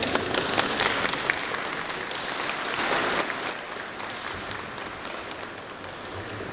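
Audience applauding, the clapping thinning out and dying away over the last few seconds.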